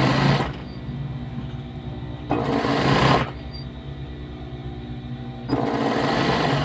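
Industrial straight-stitch sewing machine stitching a seam in T-shirt fabric in three short runs of about a second each: one at the start, one in the middle and one near the end. A low steady hum fills the pauses.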